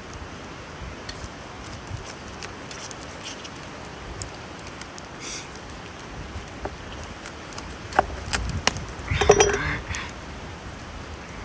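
Knife filleting a fish on a board: quiet cutting and scraping with scattered light clicks and clinks over a steady hiss, and a louder clatter about nine seconds in.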